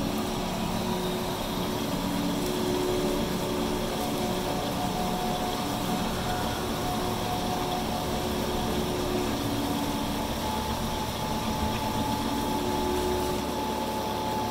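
Smithy 3-in-1 combination lathe running, turning a metal shaft: a steady machine hum with several held tones.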